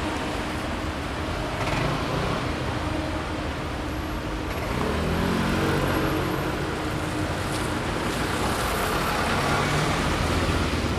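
Busy city street traffic: a steady wash of cars and other vehicles passing. About halfway through, one engine's hum rises above the rest for a couple of seconds.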